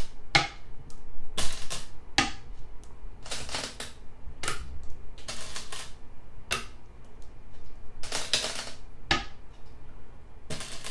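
Go stones being set down on a Go board one after another to replay a sequence of moves: about ten sharp clicks at uneven intervals.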